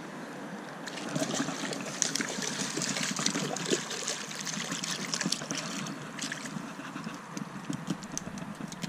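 Water splashing and dripping, with crackly handling noise starting about a second in, as a small wild brown trout is landed and lifted from the creek.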